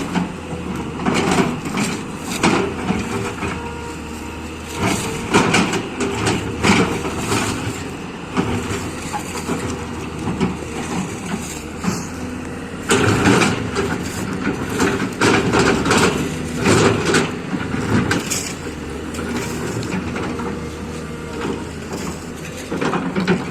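Liugong 920D hydraulic excavator working: its diesel engine runs steadily while repeated irregular crunches and knocks come from the digging.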